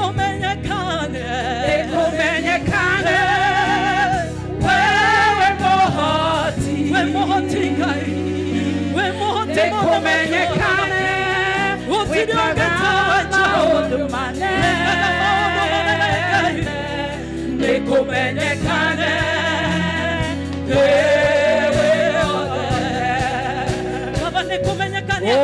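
A women's praise team singing a gospel worship song into microphones, with vibrato on held notes, over a band accompaniment.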